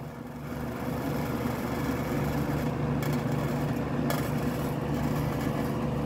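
1960s Arvin box fan running at high speed: a steady motor hum with a vibration rattle that swells over the first second or two as the hand holding the fan's loose part still lets off, then holds steady.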